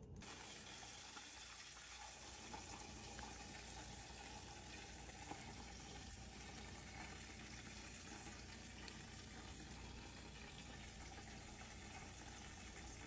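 Faint, steady hiss with no distinct events.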